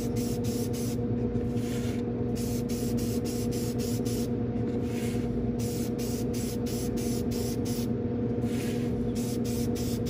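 Aerosol can of Aleene's matte acrylic sealer spraying in many short hissing bursts with brief pauses, laying a wet coat on plywood.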